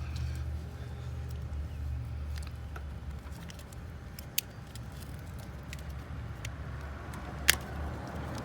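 Small plastic clicks and taps from prying at the clips of a TIPM wiring connector, with one sharp snap about seven and a half seconds in, over a steady low hum.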